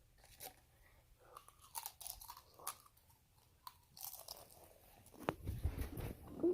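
Handling noises: scattered crackles and sharp clicks of things being moved about, with a burst of louder knocks and thuds about five seconds in.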